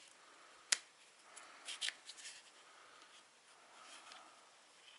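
Clear plastic hobby-knife blade dispenser being handled and fiddled open: a single sharp click under a second in, a short cluster of clicks and plastic rattles near the two-second mark, and soft rubbing of plastic under the fingers between them.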